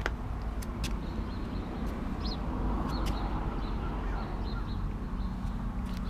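Steady low hum with small bird chirps several times and scattered sharp clicks.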